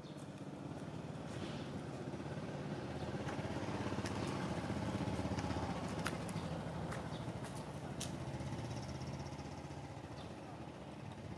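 A motor vehicle engine passing by, its hum rising to a peak about halfway through and then fading, with a few sharp clicks over it.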